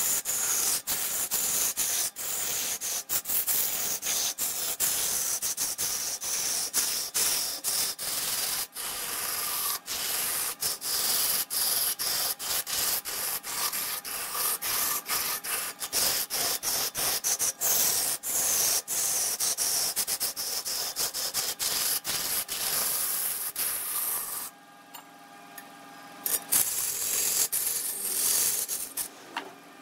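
Wood being worked on a spinning wood lathe: tool or abrasive rubbing against the turning workpiece, making a continuous hissing rasp broken by many brief drops. About 25 s in the rubbing stops for a couple of seconds, leaving a quieter steady hum, then starts again.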